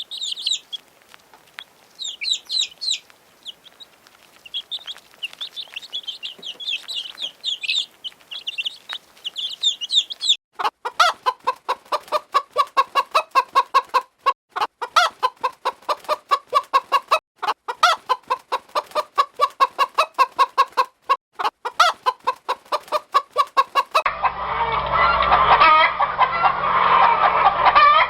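Poultry calling in three stretches. First, high, thin chirping typical of chicks. From about ten seconds in, a fast run of clucking calls. Near the end, a denser flock din.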